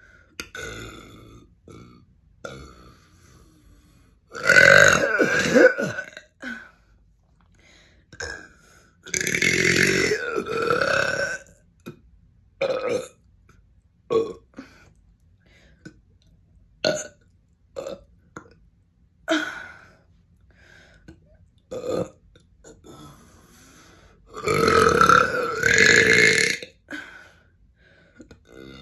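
A person belching over and over: three long, loud drawn-out burps of about two seconds each, with many short burps in between.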